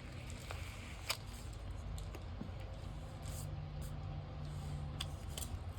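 A few faint, sharp clicks and paper sounds from peeling and handling planner stickers, over a low steady room hum.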